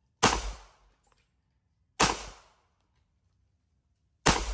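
Three 9mm pistol shots about two seconds apart, fired from a Polymer80 (P80) Glock 19-style handgun; each is a sharp report that dies away within half a second.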